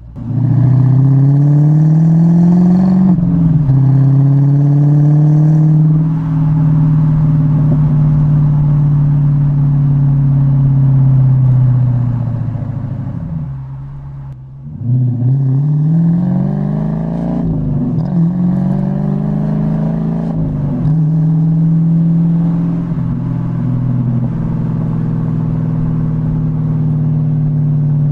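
Dodge Challenger R/T's Hemi V8 through an H-pipe and Dynomax Race Bullet mufflers, exhaust valves deleted, climbing in revs and dropping back as it shifts, then holding a steady pull. About halfway through it lifts off, the note falling and quietening, then it pulls up again and holds steady, with a few short sharp pops around the shifts and the lift.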